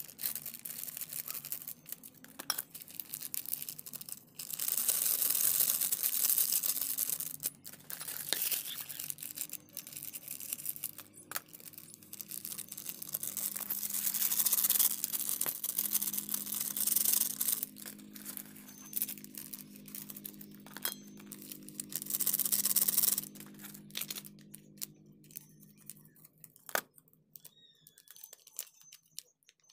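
Foil spice packets crinkling as they are cut open and shaken out over a plastic tub, in three longer bursts of rustling with short snips and clicks between. A faint low steady hum runs underneath until near the end.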